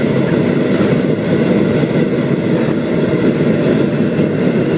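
Steady, loud rumble of a vehicle engine running, unbroken.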